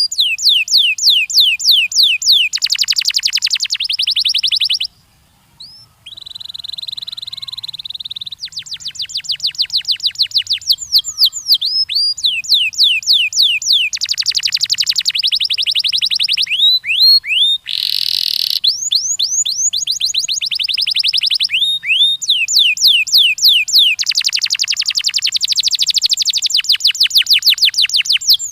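Domestic canary singing: fast trills of repeated falling notes in tours that switch every few seconds, including a steady whistled note and a short buzzy phrase, with a brief pause about five seconds in.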